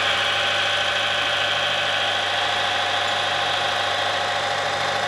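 Timken-type friction tester running: its motor turns a steel ring against a test block in standard oil dosed with NanoLub additive, under low friction. A steady, even hum.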